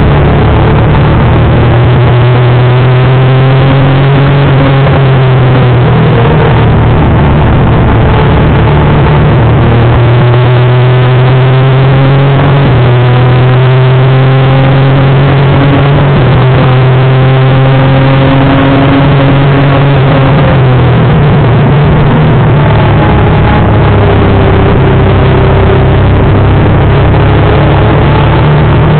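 Honda CBR250R MC19's inline-four engine at racing revs, heard from on board the bike. Its pitch climbs repeatedly through the gears and drops back, several times over, under a steady loud rush of wind on the microphone.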